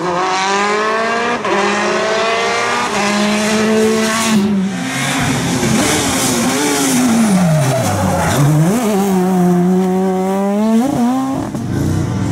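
Rally car engines at full throttle, climbing in pitch and dropping back at each upshift several times in quick succession. Near the middle one car lifts off: the engine note falls away, then revs back up through the gears.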